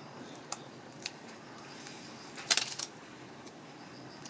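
A couple of faint light clicks, then a short clatter of sharp clicks about two and a half seconds in, like small hard objects knocking together.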